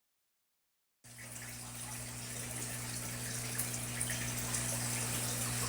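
Silent for about a second, then running water starts suddenly and keeps up a steady rush with a low hum underneath.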